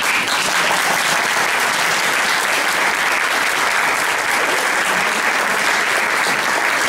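Audience applauding steadily, dense even clapping throughout.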